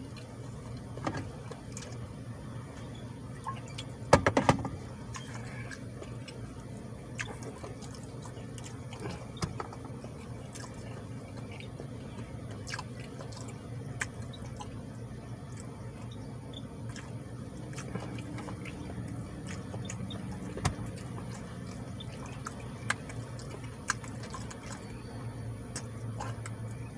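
Wet chewing and mouth clicks from a man working through a big mouthful of food, over a steady low hum. A short burst of loud knocks comes about four seconds in.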